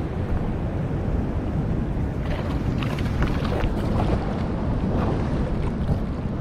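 Wind buffeting the microphone over waves washing across a rock ledge, with louder rushes of surf in the middle of the stretch.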